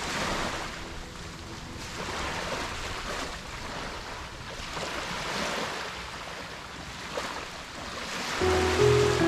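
Small sea waves washing onto a beach, the wash swelling and fading every two to three seconds. Background music comes in near the end.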